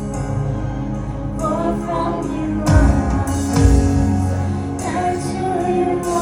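Live gospel worship music: sustained keyboard chords under a singer's wavering, held vocal line, with a couple of deep bass or drum hits in the middle.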